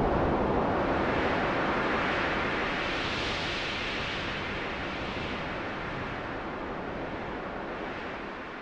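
Rushing, wind-like noise from a cinematic title sound effect, slowly fading out. Its upper part brightens a little about three seconds in.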